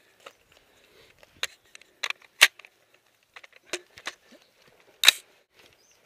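Rifle and gear handling: a scattered run of sharp clicks, knocks and rattles, the loudest about two and a half and five seconds in.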